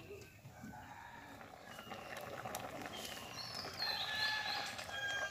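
Birds calling in short chirps and rising and falling whistles, loudest about four seconds in, with a few light clinks of a metal ladle stirring vegetables in a steel kadhai.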